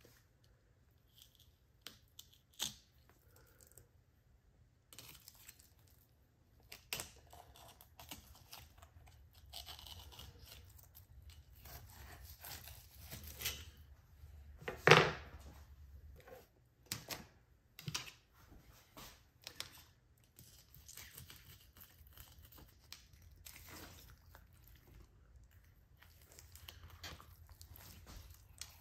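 Lane snapper being filleted with a knife: intermittent cutting and tearing sounds with scattered clicks and handling noises, and one sharp knock about halfway through.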